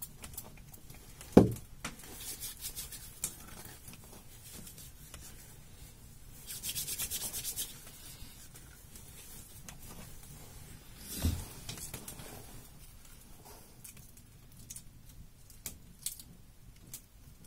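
Knife cutting sausage on a plate: soft scraping and rubbing, with a quick run of rasping sawing strokes about seven seconds in. Two sharp knocks, the loudest about a second and a half in and another about eleven seconds in.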